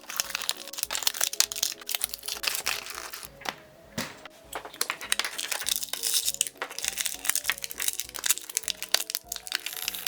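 Plastic packaging crinkling and crackling, with sharp clicks, as a toy play set is unboxed and handled, over background music.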